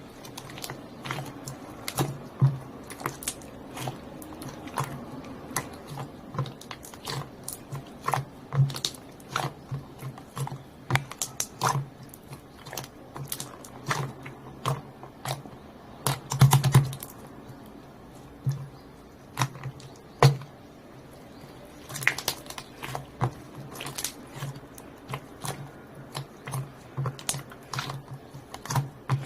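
Green slime being squeezed and worked by hand, giving a stream of irregular sticky clicks and small pops, with a louder cluster of them a little past halfway.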